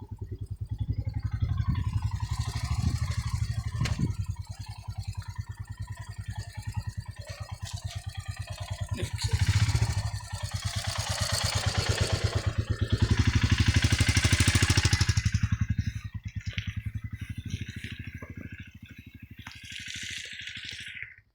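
Motorcycle engine running while riding over a rough off-road track, with rattling and clatter. A rushing noise swells and fades in the middle of the ride.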